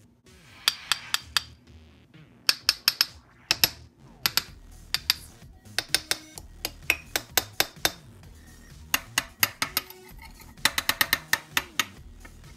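A metal knife tapping on hardened caramel set in ceramic ramekins and a glass dish, giving sharp clinks in quick runs of several taps. The hard clicking shows the caramel has set rock-hard.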